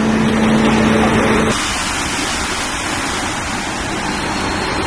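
Garbage compactor truck running with a steady low hum while a bin is loaded. It cuts off suddenly about a second and a half in and gives way to a steady, even hiss of background noise.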